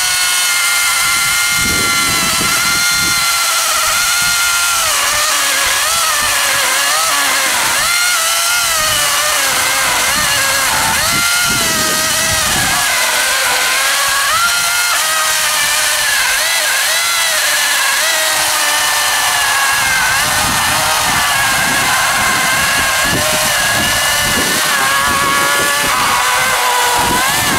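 Einhell GE-LC 36/35 LI 36-volt cordless chainsaw running flat out and cutting through a dry, hard log about 26 cm thick: a steady, high electric-motor whine whose pitch wavers as the chain bites into the wood, with the rasp of the chain cutting.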